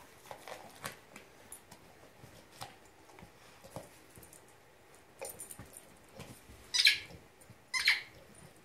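A German Shorthaired Pointer working at the crinkly wrapping on a ball toy with its mouth and paws, making scattered light rustles and crackles. Near the end come two louder bursts of crinkling about a second apart.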